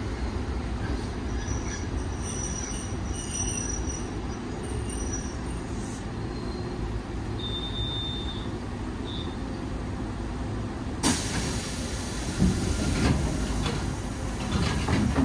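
Kotoden electric train running, heard from inside the car: a steady low rumble. About eleven seconds in, a sudden loud rush of hissing noise with a few knocks starts and carries on to the end.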